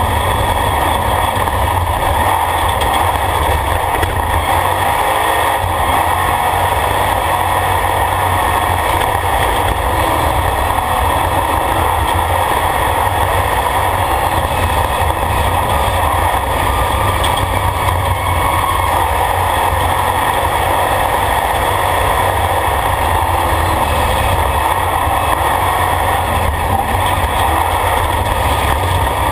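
Off-road race vehicle's engine running steadily at speed over a dirt track, with road noise, heard inside the roll-caged cabin.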